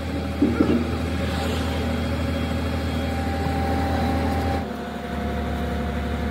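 A heavy engine idling steadily with a low drone. Its sound changes abruptly about four and a half seconds in, and there is a brief clatter under a second in.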